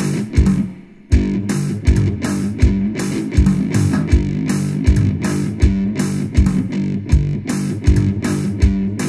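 Amplified one-string cigar box guitar (diddley bow) played with a slide: a riff of picked low notes, each with a sharp attack, about two a second, with a short drop-out about a second in.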